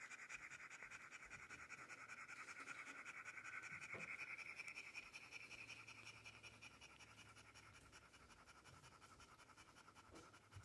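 Faint, rapid panting from a French bulldog mother, about five breaths a second, as she nurses her day-old litter a day after giving birth.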